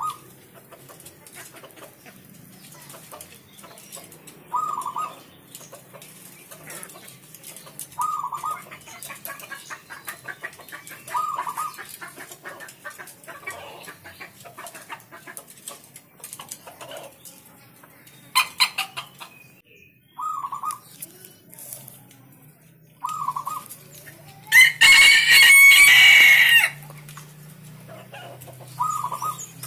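Zebra dove (perkutut) cooing, short low notes repeated every three to four seconds. A rooster crows loudly for about two seconds about three-quarters of the way through.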